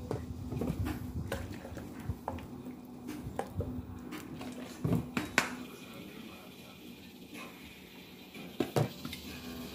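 A scattered series of light clicks and taps of spoons and containers on a frying pan as seasonings are added to raw meat strips, with a couple of sharper knocks about five seconds in and two more near the end. A faint steady hum runs underneath.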